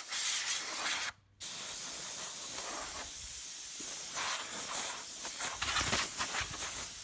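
Compressed air hissing out of a nozzle while blowing dust out of a computer's front bezel: a short blast that stops about a second in, then after a brief pause one long, steady blast.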